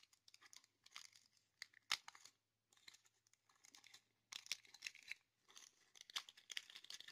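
Faint crinkling and rustling of a small clear plastic zip-lock bag as fingers pull it open, in short irregular bursts with a sharper click about two seconds in.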